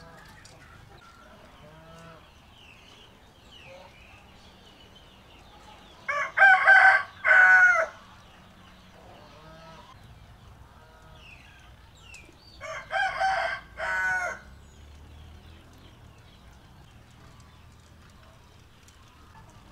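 A rooster crowing twice, about six seconds apart, each crow about two seconds long and in several parts, with faint bird chirps in the background.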